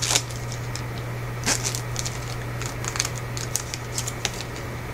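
Foil trading-card pack wrapper crinkling and crackling in scattered sharp crackles as it is handled and torn open.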